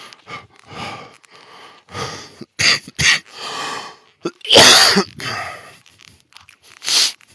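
A heavyset man puffing and wheezing close to the microphone, his breaths broken by a few short, sharp coughs. The loudest burst comes about four and a half seconds in.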